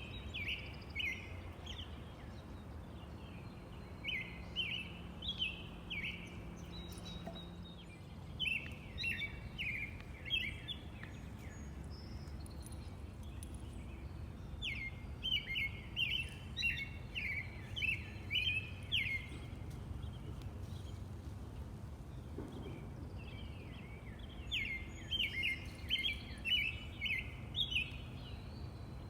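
A robin singing: repeated phrases of short, clear whistled notes, with pauses of a few seconds between phrases, over a steady low background rumble.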